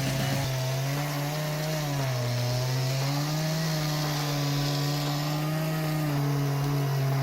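Husqvarna 3120 XP large two-stroke chainsaw running under load while cutting into a stump. Its engine pitch dips about two seconds in, climbs back, and drops again near the end as the chain bites.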